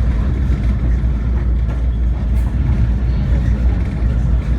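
Steady low rumble of a moving passenger train, heard from aboard.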